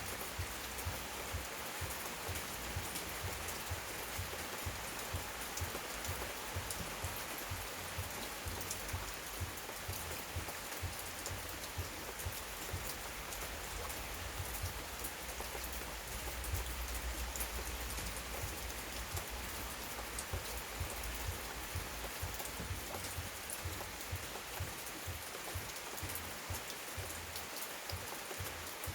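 Heavy rain falling steadily, a dense even hiss with many individual drops ticking sharply on a nearby surface.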